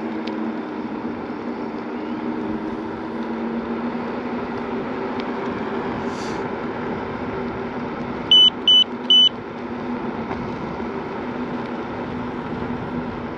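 Segway Ninebot Max G2 electric scooter riding steadily, its motor giving a low, even hum over tyre and wind noise. A little past the middle, three short, loud electronic beeps from the scooter's horn sound in quick succession.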